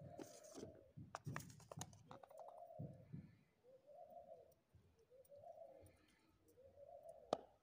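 A bird calling in the background: a short low call that rises and falls, repeated about every second and a half. Soft clicks and knocks from handling at the cooking pot come in the first couple of seconds, with one sharp click near the end.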